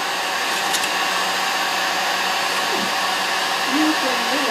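Handheld hot-air blower running steadily with an even rush of air, heating a sheet of Depron foam to soften it for bending.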